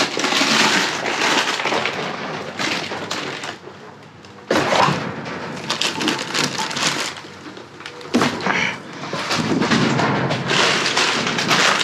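Rummaging through a dumpster: dense crackling and rustling with knocks and thuds as items are grabbed and moved, easing off for a moment about four seconds in and starting up again sharply.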